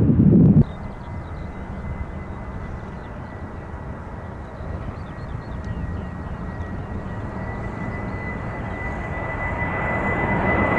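Jet aircraft engines with a steady high whine over a rushing noise, growing louder toward the end as the aircraft comes closer. A loud low rumble cuts off abruptly about half a second in.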